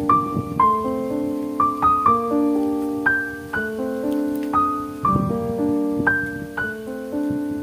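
Background piano music: a slow melody of single struck notes, each ringing and fading, over held chords.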